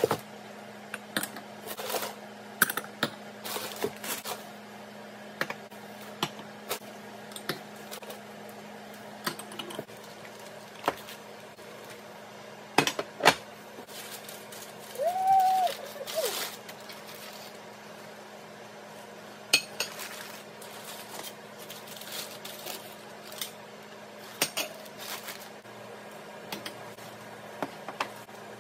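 Glassware and china dishes set down on a table one after another, with scattered clinks and knocks and some rustling of packing paper.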